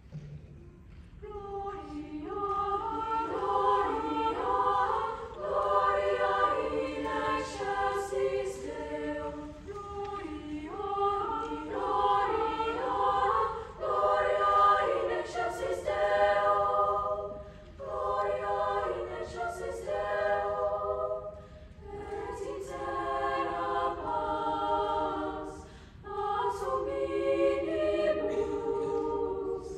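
Treble (upper-voice) choir singing in parts, the voices entering about a second in and moving in phrases with short breaks between them.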